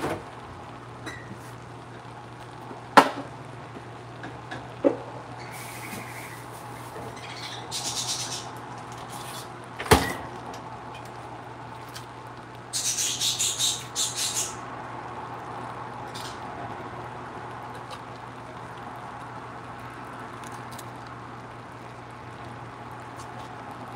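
Kitchen handling noises over a steady low hum: three sharp knocks, about three, five and ten seconds in, and two spells of rustling, the longer one about thirteen seconds in.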